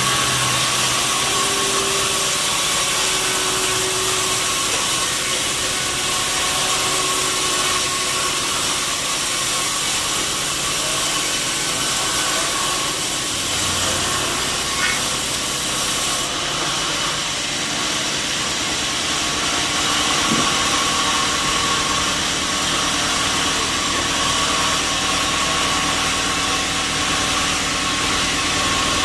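Sawmill saw running steadily, a constant loud noise with a steady whine over it.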